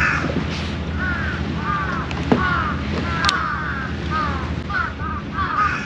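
Birds calling over and over in short, arched cries that come faster and crowd together toward the end, with a steady low hum underneath.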